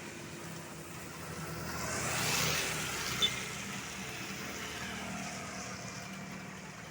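A motor vehicle passing close by on the road: engine and tyre noise swelling to a peak about two and a half seconds in, then fading, over a steady low engine hum. A short sharp click comes just after the peak.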